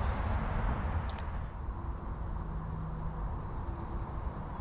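Insects chirring steadily in a high, unbroken tone, over a low rumble of wind or water.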